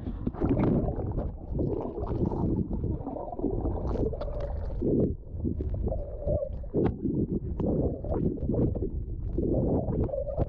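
Pool water heard underwater through a GoPro Hero 8 Black with no extra housing: muffled sloshing and gurgling, with a few scattered knocks.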